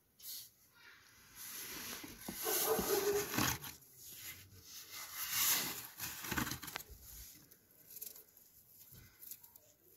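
A hand brushing and scooping fresh snow on a balcony ledge: several bursts of soft crunching and swishing with short gaps between them.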